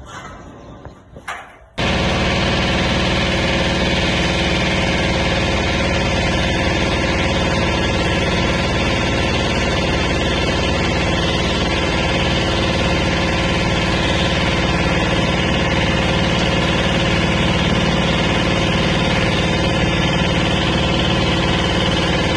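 An engine or motor runs steadily at one constant speed, with a hum and a dense hiss. It cuts in abruptly about two seconds in, after a few faint clinks.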